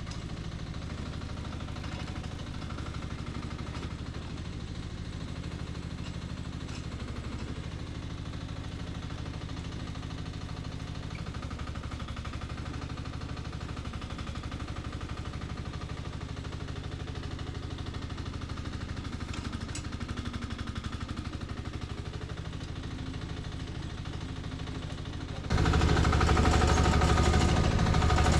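The engine of a 1-ton mini excavator running steadily. It becomes suddenly much louder about three seconds before the end.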